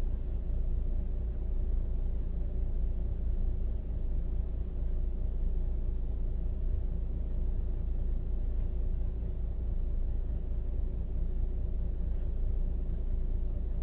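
Steady low rumble with a faint constant hum, unchanging throughout, as heard from a dashcam inside a stationary truck cab.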